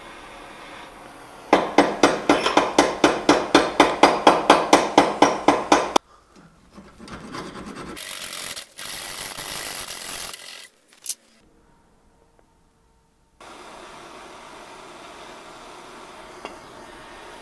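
A hacksaw cuts through a steel nail clamped in a vise, in fast even strokes about three or four a second; the nail is being cut down to make a rivet. Before and after the sawing there is the steady hiss of a blowtorch flame.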